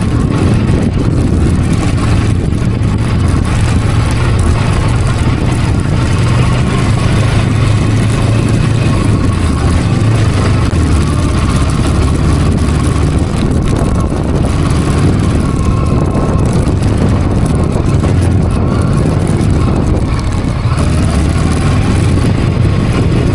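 Macbor Montana XR5 510 motorcycle engine running steadily while riding off-road, with a rushing noise over it.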